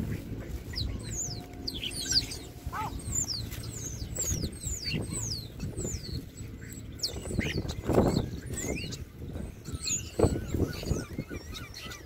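A small flock of starlings calling, many short high whistles that slide downward, one after another. A few brief rustling flurries, like wing flaps, come around the middle and toward the end.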